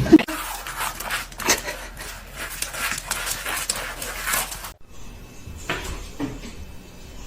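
An animal panting in quick, noisy breaths, about two a second, which stop abruptly partway through.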